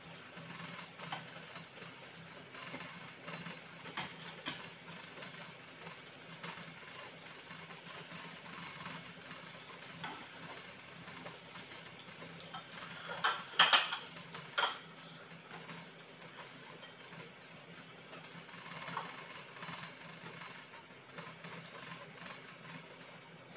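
Noodles being stir-fried in a nonstick frying pan on an induction cooker: a tongs-type utensil clicks and scrapes against the pan over a faint hiss and a steady low hum. About halfway through comes a burst of louder clacks, the loudest sound here.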